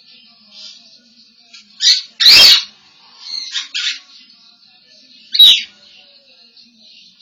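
African grey parrot calling in short separate bursts: a short call about two seconds in, then a loud harsh squawk, a quick run of chirps around three and a half seconds, and a sharp whistle about five and a half seconds in.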